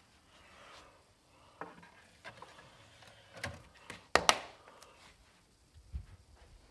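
Handling noises of a plastic DVD case and disc: scattered small clicks and knocks, with one sharp, loud knock about four seconds in.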